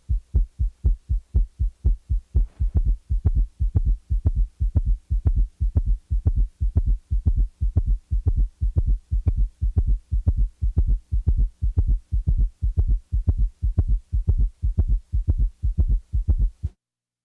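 Rapid heartbeat heard on auscultation with a summation gallop: a loud extra diastolic sound, where S3 and S4 fuse at the fast rate, falls midway between the second heart sound and the next first sound, giving a fast galloping rhythm of low thuds. It stops suddenly near the end.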